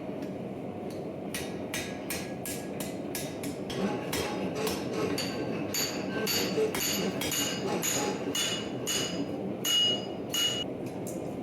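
A hand hammer striking steel on an anvil, about three blows a second, forging a draw knife. The blows ring louder from about the middle on, and the loudest comes near the end, over a steady low background noise.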